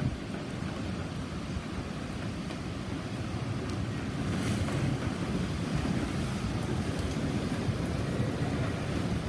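Typhoon wind and heavy rain, a steady rushing noise that grows a little louder about four seconds in.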